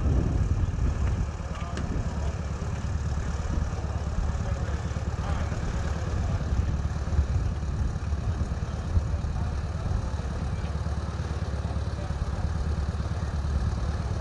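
Land Rover engine idling steadily with a low rumble while the road train stands still.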